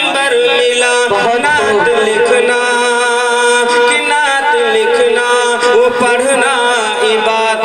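A man singing an Urdu naat into a microphone, unaccompanied by speech, in drawn-out melodic lines with long held, wavering notes.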